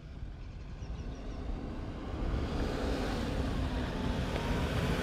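Four-wheel-drive vehicle approaching on a dirt road, its engine and tyre noise growing steadily louder.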